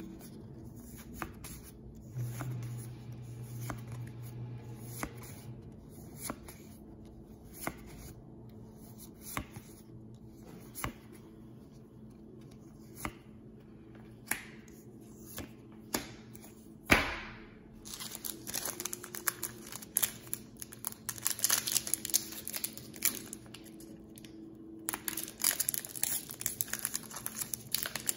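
Pokémon trading cards being flipped through by hand, a soft card snap about once a second, with one sharper snap around the middle. From a little past halfway, the dense crinkling and tearing of a foil booster pack wrapper being opened.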